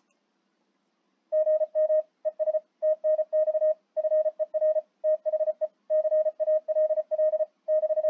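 Morse code (CW) sidetone from a Flex 6600M software-defined radio: a single steady mid-pitched beep keyed in dits and dahs, starting about a second in. It is sending the spoken "good morning" converted into the abbreviated greeting "good morning, thanks for the call".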